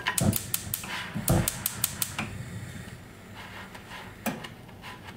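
Kitchen utensils clicking and knocking against a pan and dishes: a quick run of clicks over the first two seconds, then quieter, with one more knock near the end.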